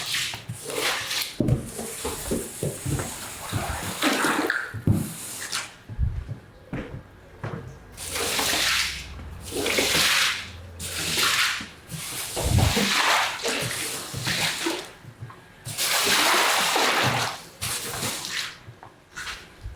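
Water washing over a mud-caked wet carpet, coming in repeated hissing bursts of a second or two with short gaps between them, and a few dull thuds.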